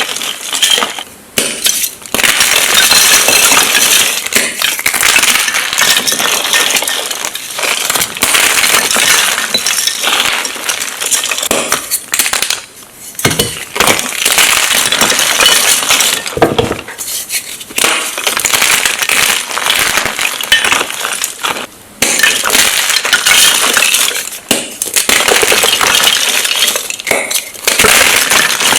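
Blocks of magnesium carbonate gym chalk being crushed and crumbled by hand: a dense, crisp crunching and crackling that keeps on, stopping briefly a few times.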